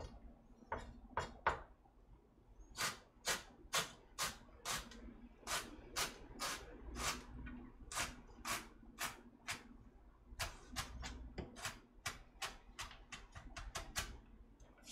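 Kitchen knife mincing carrot on a cutting board: a few scattered chops, then steady knocks of the blade on the board about two a second, coming quicker near the end.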